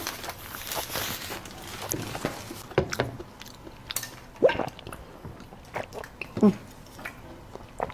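Close-up eating sounds: biting and chewing with scattered sharp clicks, and a few brief mouth or throat noises in between.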